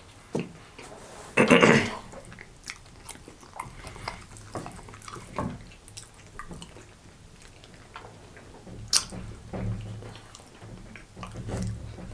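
Close-up chewing and mouth sounds of people eating dry saltine crackers: scattered small clicks and crunches, with one louder burst about a second and a half in.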